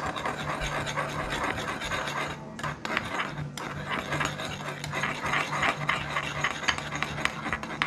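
Metal spoon stirring and scraping around a stainless steel mixing bowl, mixing a thick mayonnaise and sriracha sauce. Continuous rapid scraping with a couple of short pauses.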